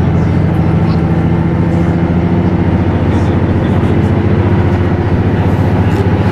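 Inside a KiHa 75 diesel railcar under way: a steady diesel engine drone, several low tones held level, over the rumble of the wheels on the rails.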